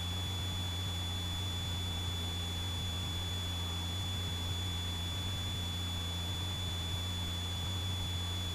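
Cessna 172 engine and propeller giving a steady, even drone in the cabin, with a thin, steady high-pitched whine over it.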